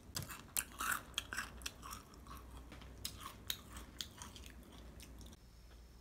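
Close-up mouth sounds of someone biting into and chewing mochi ice cream: a run of quick clicks and crunches that stops about five seconds in.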